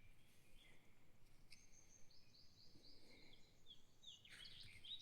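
Faint birdsong: short high chirps, with a quick run of repeated falling notes in the middle and a few more near the end.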